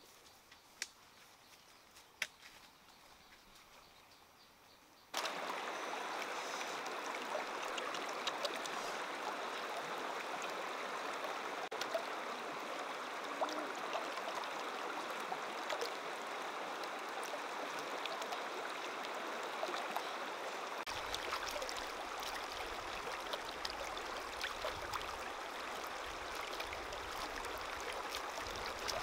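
A faint start with a few light clicks, then about five seconds in a steady rush of shallow running stream water sets in suddenly and continues. About two-thirds of the way through, a lower sound joins it as hands stir a woven basket of grubs in the water.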